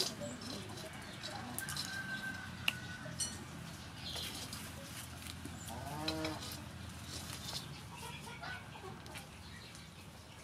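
Outdoor rural background with a farm animal calling once, briefly, about six seconds in, among scattered small clicks and a short high whistle near two seconds in.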